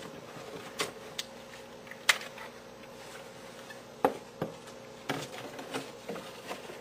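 Scattered short clicks and taps of a plastic tone probe, a carry pouch and packaging being picked up and set down on a tabletop, over a faint steady hum.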